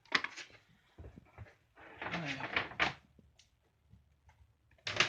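Knocks and a scraping rustle of wire and a manual wire stripper being handled: a sharp knock at the start, a scraping stretch around the middle, and another sharp knock near the end.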